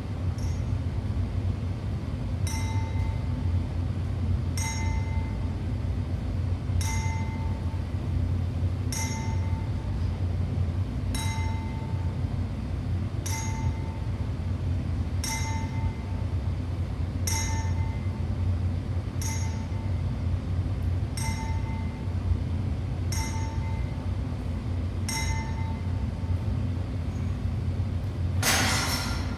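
A short metallic ping, like a small bell or struck metal, repeating about every two seconds over a steady low rumbling noise. A louder burst of noise comes near the end.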